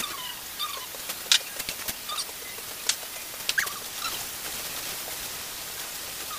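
Stir-frying chayote in a wok: a steady sizzle with the spatula clicking and scraping against the pan a few times. Short, falling chirps from a small animal or bird are heard in the background now and then.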